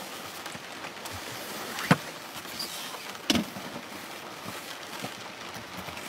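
Steady hiss of heavy rain, with two sharp knocks about two seconds and three and a half seconds in.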